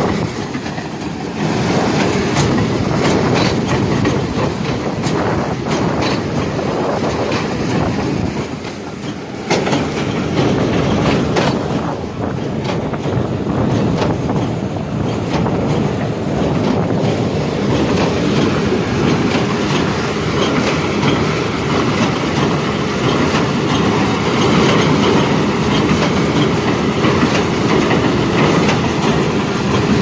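John Deere 1433 four-string small square baler working in hay, with a steady, dense clatter and knocking from the machinery, briefly quieter about nine seconds in. The towing tractor's engine runs underneath.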